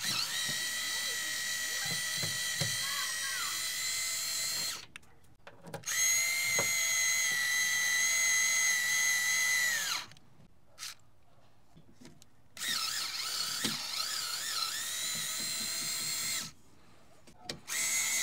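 Channellock Rapid Fire cordless power screwdriver turning a screw in metal: a high, steady motor whine in three runs of about four seconds with short pauses between, starting again near the end. In the third run the pitch wavers as the motor comes under load.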